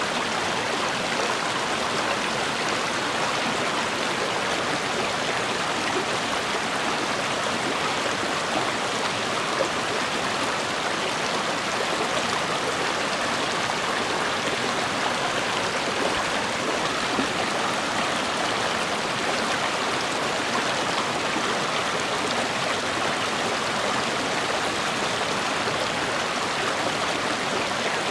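River water flowing over rocks, a steady, even rushing.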